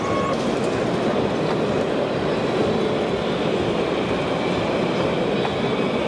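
Steady mechanical whirring and rattling from 1:14 scale radio-controlled construction machines at work: the electric drives and hydraulics of model excavators and dump trucks, with a thin motor whine above.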